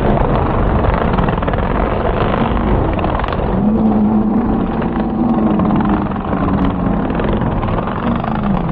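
Racing ATV (quad) engines running hard over supercross jumps. From about three and a half seconds in, one engine's note comes through clearly, holds and wavers, then drops near the end.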